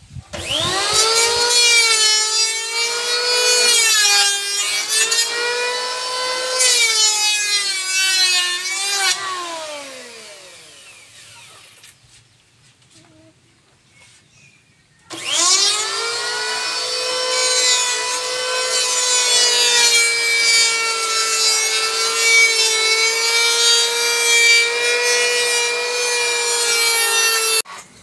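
Handheld electric power planer shaving a wooden spear shaft: a motor whine with cutting noise. It spins up about half a second in, runs about nine seconds, then winds down with falling pitch. After a pause of a few seconds it starts again and runs steadily until it cuts off just before the end.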